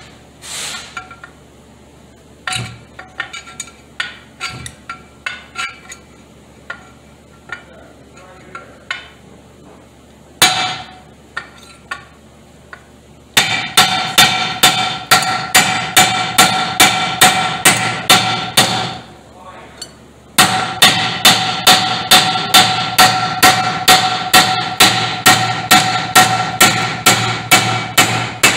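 Hammer striking a steel punch held in the aluminum valve body of a 4T40E automatic transmission, knocking steel parts out of the aluminum for scrap. Each blow rings with a metallic tone. Scattered lighter taps come first, then two long runs of rapid blows at about three a second, with a brief pause between them.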